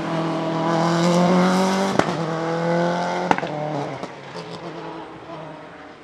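2001 Subaru Impreza S7 WRC rally car's turbocharged 2.0-litre flat-four accelerating hard past, its pitch rising, with two sharp cracks about two and three seconds in, then fading as it pulls away.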